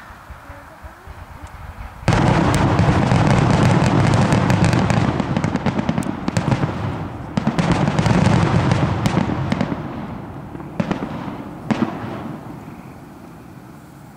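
Aerial fireworks going off: about two seconds in, a sudden loud burst turns into dense crackling that lasts several seconds. A second surge follows about seven seconds in, then two single sharp bangs near the end as the sound fades.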